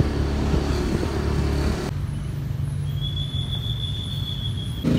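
Engine and road rumble of a moving vehicle, heard while riding along. About two seconds in it cuts abruptly to a quieter steady hum, and in the last two seconds a steady high-pitched tone is added.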